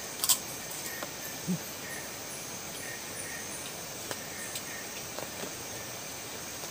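Steady high chirring of insects, with a short run of high stepped notes in the first few seconds. A sharp click sounds about a third of a second in, and a soft low thump about a second and a half in.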